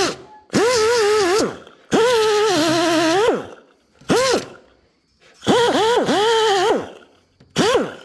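Air-powered grinder run in short trigger bursts, about six of them, grinding down rough welds on sheet metal. Each burst is a high whine over a hiss: it rises as the tool spins up, sags and wavers as it is pressed into the metal, and falls as it spins down.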